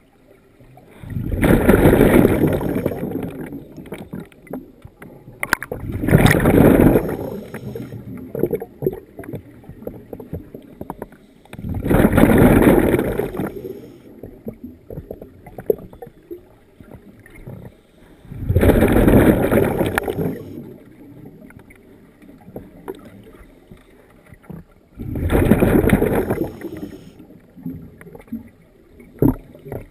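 Scuba diver's exhaled breath bubbling out of the regulator underwater: five bursts of bubbles, one about every six seconds, each lasting a second or two, with quieter gaps between breaths.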